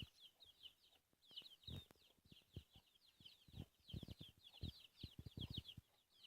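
Chicken chicks peeping, a rapid run of short high chirps, with soft low thumps scattered among them.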